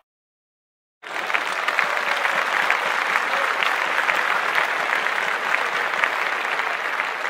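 Applause: many hands clapping, starting abruptly after about a second of silence and then holding steady.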